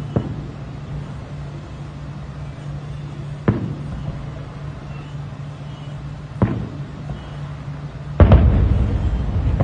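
Aerial fireworks bursting in the distance: single booms about three seconds apart, then a louder boom about eight seconds in that runs on into a rumbling crackle.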